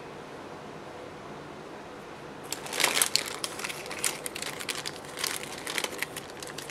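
Plastic gift bag crinkling as it is handled and opened, with dense irregular crackling that starts about two and a half seconds in after a stretch of faint room tone.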